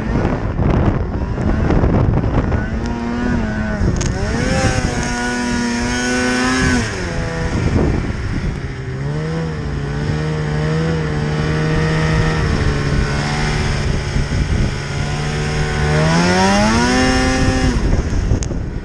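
Polaris snowmobile's two-stroke engine pulling the sled through powder: the revs climb a few seconds in and hold high, drop back around the middle to a steadier lower pitch, then rise again near the end before easing off.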